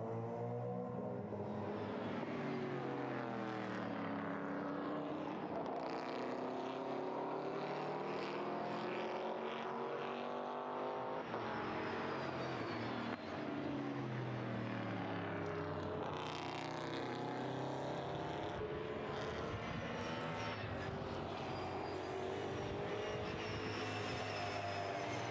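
V8 racing engines of BMW M3 race cars at full race pace, several engine notes overlapping and rising and falling in pitch as the cars accelerate, change gear and brake.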